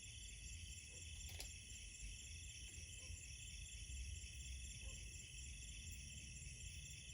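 Night insect chorus: crickets and other insects trilling steadily in several high pitch bands, over a low rumble, with one sharp click about a second and a half in.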